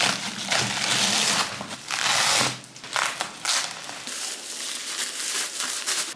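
Album packaging crinkling and rustling as it is handled and opened, loudest in two bursts in the first couple of seconds, then softer crackling.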